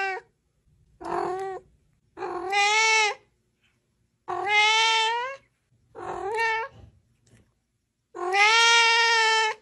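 A cat meowing over and over: about six drawn-out meows with short pauses between them, the last one the longest.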